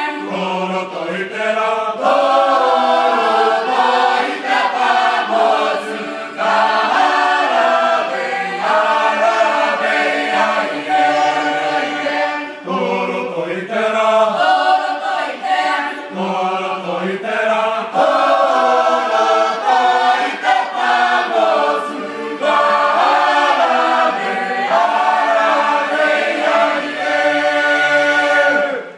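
Mixed choir of women's and men's voices singing a traditional Cook Islands hymn unaccompanied, in long phrases with short breaks for breath.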